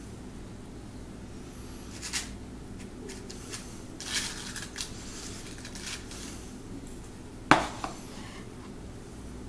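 Metal spoons clinking and scraping against a mixing bowl and muffin tin as cake batter is scooped into paper cupcake liners. The clinks come scattered, with one sharp clink about seven and a half seconds in, over a steady low room hum.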